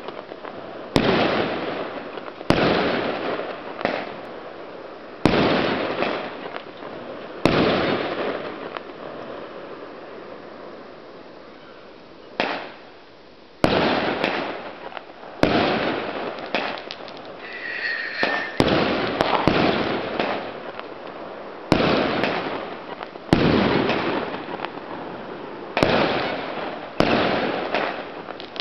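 Aerial fireworks going off: a string of sharp bangs every second or two, each dying away over a second or so. There is a quieter stretch of a few seconds in the middle, and a short whistle about eighteen seconds in.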